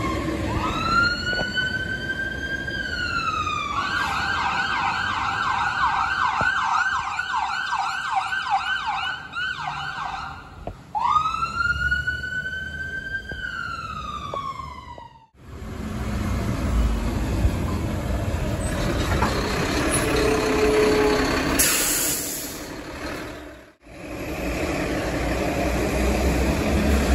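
A vehicle siren sounds a rising-and-falling wail, switches to a fast yelp at about three sweeps a second, then goes back to the wail, over street traffic. After a sudden cut come the noise of a heavy truck running in traffic, and after another cut a garbage truck's engine running as it drives through an intersection.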